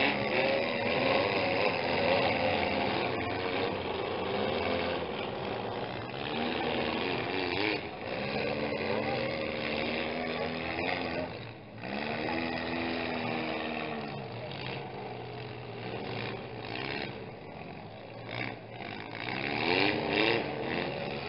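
Engines of several compact demolition derby cars running and revving, their pitch rising and falling in bursts several times over a steady rumble.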